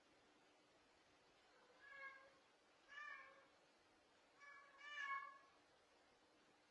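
A cat meowing faintly, four short meows, the last two in quick succession.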